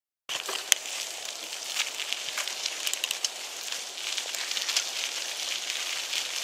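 Mountain bike tyres rolling over a dry, burnt dirt trail strewn with pine needles and palmetto debris: a steady crackling crunch with scattered sharp clicks and ticks. It starts suddenly about a third of a second in, with one loud click soon after.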